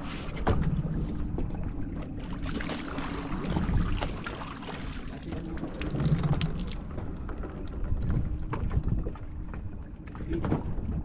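Fishing boat's engine running steadily under wind rushing on the microphone, with scattered sharp knocks around the boat. The rush of wind and water is stronger in the middle of the stretch.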